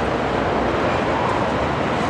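Twin Pratt & Whitney PT6A turboprop engines of a Beechcraft King Air F90 running at the runway end, a steady, even rushing noise.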